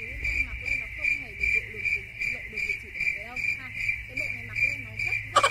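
Cricket-like chirping: a steady high trill pulsing about three times a second, over a low hum. Right at the end the trill cuts off and a louder run of rapid clicks begins.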